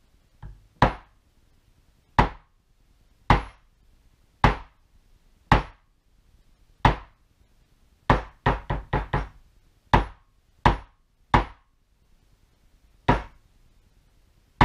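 Maul striking a small backgrounding stamp into tooling leather, outlining raised letters. Sharp taps come about once a second, with a quick run of five near the middle.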